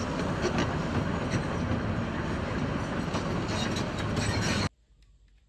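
Tracked hydraulic excavator at work, its diesel engine running steadily. The sound stops abruptly about four and a half seconds in.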